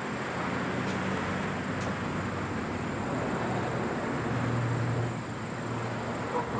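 A motor vehicle's engine running, with a steady low hum that grows louder over the first second and then holds, over street traffic noise.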